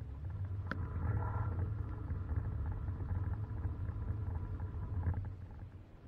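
Running dishwasher heard from inside its tub: a low rumble of the wash pump and spraying water that holds steady and dies down about five seconds in. A single sharp click comes under a second in.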